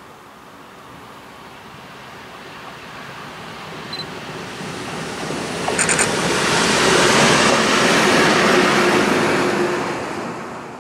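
ST48 diesel locomotive running light, approaching and passing close by. Its engine and wheel noise builds steadily, with a few sharp clicks about six seconds in and a steady hum at its loudest, about seven to nine seconds in, then fades quickly as it goes past.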